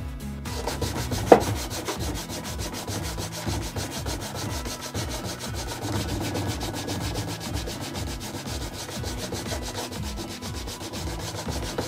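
Canvas cloth rubbed quickly back and forth along a stitched vegetable-tanned leather strap, a steady run of short rubbing strokes. A single sharp knock about a second in.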